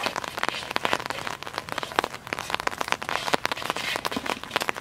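Rain falling, with many close raindrops striking in a dense, irregular run of sharp ticks.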